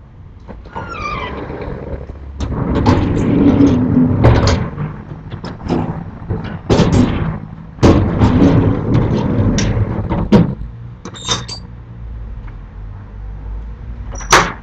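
Sliding storm shutters (amado) on a second floor being banged: clattering knocks and rattles in dense bursts, easing off for a few seconds, then one sharp bang near the end.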